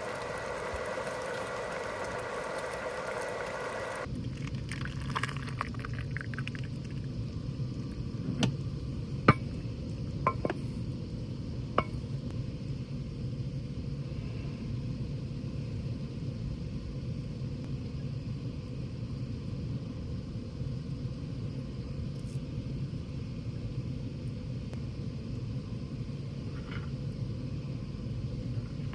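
A steady humming tone for about four seconds, then a low steady rumble with a few sharp clicks and knocks between about eight and twelve seconds in.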